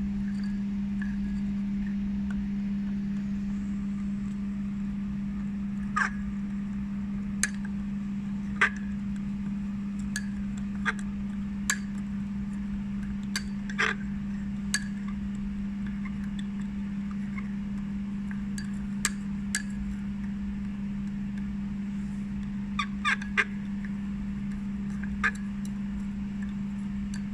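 Glass stirring rod clinking against the inside of a glass beaker while stirring a heated sodium acetate solution, about a dozen short sharp clinks with several in quick succession near the end, over a steady low hum.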